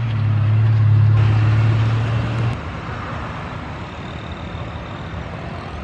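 Airbus A319 jet engines running at taxi power as the airliner swings onto the runway, a steady noise with a strong low hum that cuts off abruptly about two and a half seconds in.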